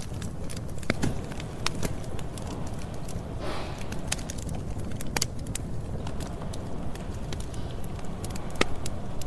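Campfire burning: a steady low rumble with irregular crackles and sharp pops of burning wood, and a brief hiss about three and a half seconds in.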